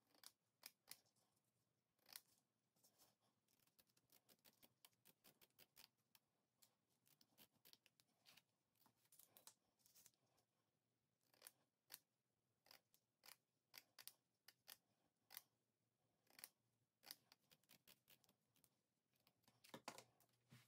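Faint scissors snipping through rhinestone mesh ribbon, with many short, sharp clicks from the cuts and from the mesh being handled, a denser cluster near the end.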